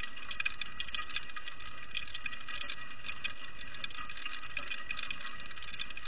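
Heavy rain pattering close to the microphone: a dense, steady crackle of tiny ticks.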